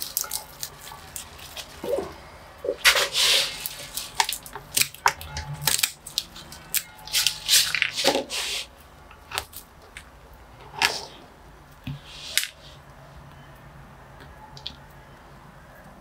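Rustling and crackling of leaves and potting soil as weeds are pulled by hand from a juniper's pot: a run of short irregular rustles over the first twelve seconds or so, then much quieter.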